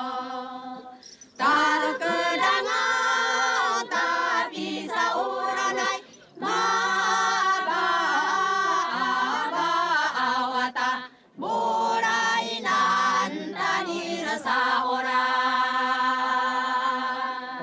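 A group of voices singing together without instruments, in phrases a few seconds long separated by short pauses.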